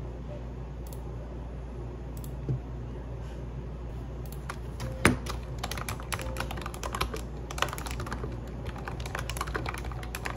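Quick, irregular light clicking and tapping, like keys or small hard objects being pressed or set down, that starts about four and a half seconds in with one sharper knock just after; before that there are only a few single taps. A steady low hum runs underneath.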